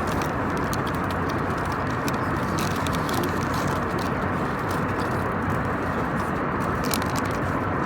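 Steady cabin noise of an airliner in flight: a constant roar of engines and rushing air, with faint scattered clicks over it.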